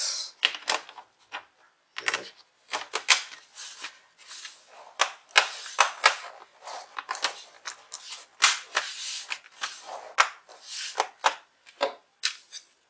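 Plastic bottom cover of a Lenovo V110 laptop being fitted and pressed down onto the chassis: an irregular run of sharp plastic clicks and short scrapes as its clips snap into place.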